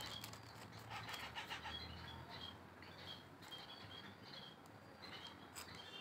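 Parrot chick making faint, short high chirps over and over, with a brief patch of clicking and rustling about a second in.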